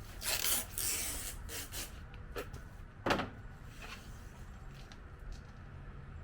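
Masking tape being pulled off the roll in several short rips, with a sharper, louder tear about three seconds in, over a steady low hum.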